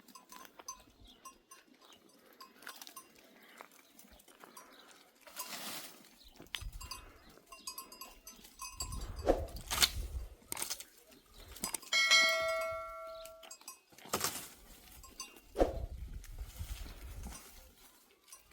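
A herd of goats with bells clinking, and a goat bleating once about two-thirds of the way through, a steady call of about a second and a half.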